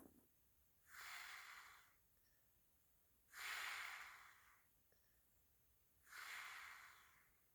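A sleeping woman breathing slowly and heavily: three faint, airy breaths about every two and a half to three seconds, each swelling and fading over about a second.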